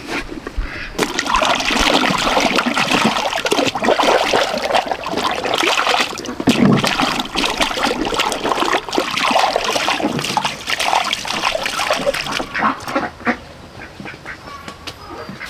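Ducks quacking and splashing about in water, busy and loud for most of the stretch, then thinning out to a few scattered calls and splashes near the end.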